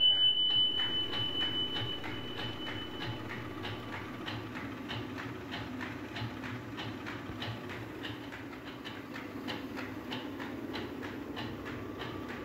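Traditional stone flour mill grinding wheat: a steady low rumble with a rhythmic clacking about two and a half times a second. A high ringing tone at the start fades away within the first few seconds.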